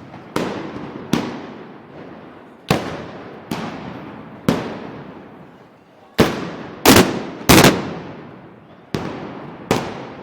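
Black-powder arcabuces fired one after another, about ten loud shots at irregular intervals, some in quick pairs, each echoing away before the next.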